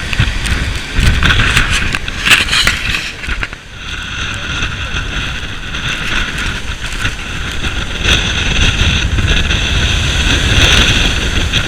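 Strong wind buffeting the microphone over a rough, churning sea, with a steady high whine above the rumble.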